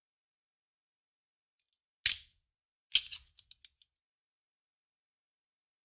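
Handgun magazine thrown down onto a hard surface: one sharp clack about two seconds in, then a second impact about a second later followed by a few small bounces that quickly die away.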